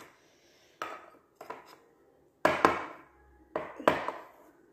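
Metal soup spoon knocking and scraping against plastic cone molds set in drinking glasses while spooning in a sticky chocolate-and-cornflake mixture. About five sharp, irregular clinks, the loudest a little past halfway.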